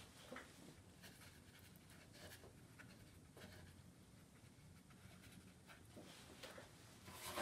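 Near silence: faint soft strokes of a damp watercolour brush dabbing and lifting paint off wet paper, over a faint steady low hum.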